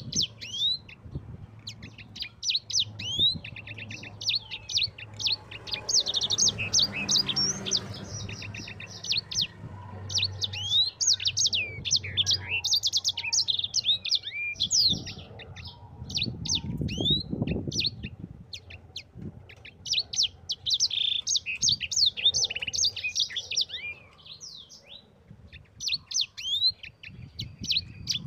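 Sanger songbird singing a long, fast rolling song ('ngerol') of rapid chirps and trills, with a short lull about 24 seconds in.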